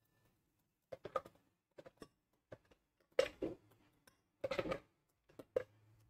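Metal spoon scraping and tapping inside a glass blender jar, stirring thick ground cocoyam paste while the blender is off. The scrapes and taps come irregularly, with a slightly louder cluster about three seconds in.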